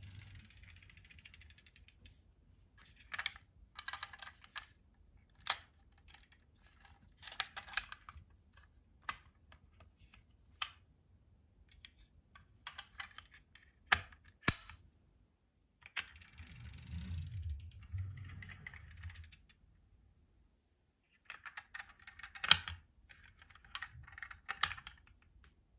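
Scattered clicks, taps and rustles of a small die-cast toy pickup truck being handled and set down on a hard tabletop, with a low rumbling stretch a little past the middle.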